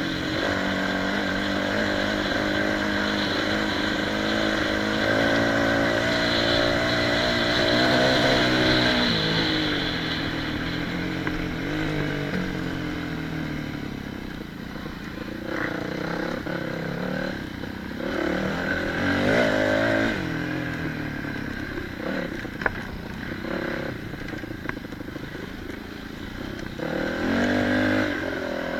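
Off-road motorcycle engine being ridden: a steady drone at first, then revs falling and rising again and again over rough ground. There are a few sharp knocks, the loudest a little after the middle, and the revs climb again near the end.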